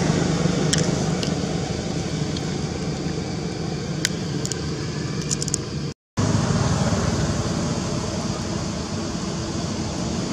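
Steady low rumble of a motor vehicle engine running nearby, with a few faint sharp clicks; the sound cuts out completely for a moment about six seconds in.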